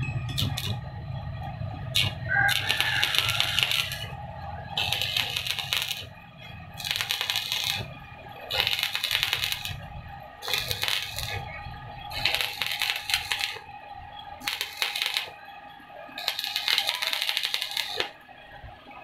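Repeated metalworking strokes on a steel injection-molding screw: crackly, scraping bursts of about a second each, roughly one every two seconds, over a steady workshop machine hum.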